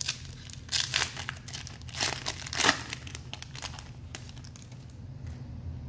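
Foil wrapper of a baseball card pack being torn open and crinkled by hand, in uneven crackling bursts that are busiest in the first three seconds and then quieter.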